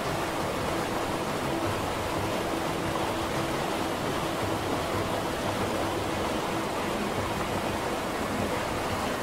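Steady, even rushing noise of an ambience soundscape, like running water or rain, with a faint low held note in the background.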